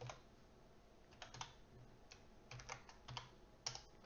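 Faint computer keyboard typing: scattered keystroke clicks in a few short runs as a line of code is typed.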